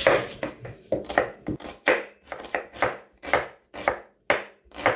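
Chef's knife dicing an onion on a wooden cutting board, the blade striking the board in a steady rhythm of about three strokes a second.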